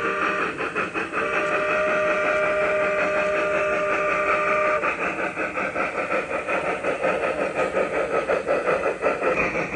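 Steam locomotive sounds from an O scale model of a Norfolk & Western 4-8-0's DCC sound decoder, played through its onboard speaker: a steady whistle blast from about a second in to nearly five seconds, over a rhythmic exhaust chuff that carries on at about four beats a second once the whistle stops.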